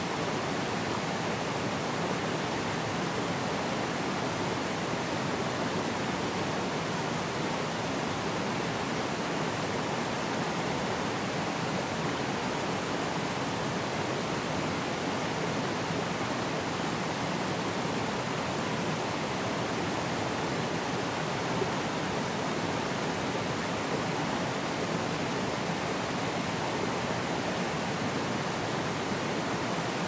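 Forest stream rushing over rocks and small cascades: a steady, unbroken rush of flowing water.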